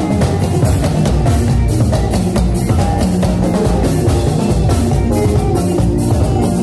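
Live band playing upbeat music: electric guitar over a steady, fast drum beat.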